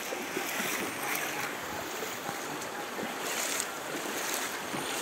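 Shallow stream running over rocks and pebbles, a steady rush of water.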